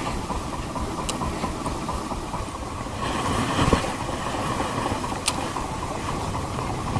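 Steady low noise of a small fishing boat at sea, its engine running amid wind and choppy water, with two short clicks about one and five seconds in.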